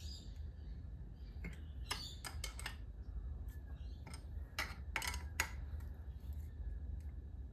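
Scattered light metallic clicks and taps of hand tools and parts being handled, irregular and bunched in two short clusters, over a steady low hum.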